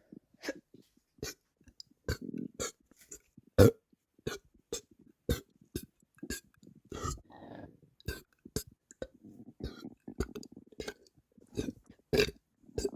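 A person burping over and over from a bloated stomach: many short, sudden burps one after another, the loudest about three and a half seconds in.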